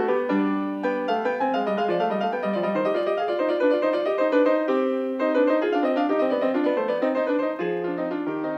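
Background piano music, a flowing run of notes that grows a little quieter near the end.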